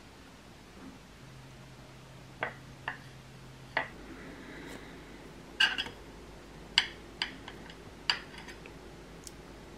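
Metal butter knife and tableware clinking on a ceramic plate as crackers are handled and spread: a scattered series of sharp clinks and taps, the loudest a quick cluster about halfway through.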